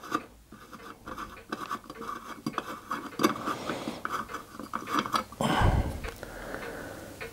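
Small brass fitting being unscrewed by hand from the top of a copper model steam engine boiler: light metallic clicking and scraping of the threads and fingers on the metal. One dull thump about five and a half seconds in.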